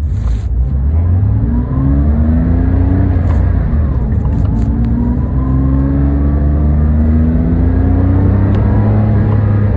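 Porsche 997's flat-six engine pulling under throttle, its pitch rising in several stretches with small dips between them, and a few short clicks over the top.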